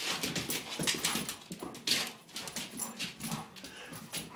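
A dog whimpering faintly while chasing a moving light, with many quick clicks and scuffs throughout.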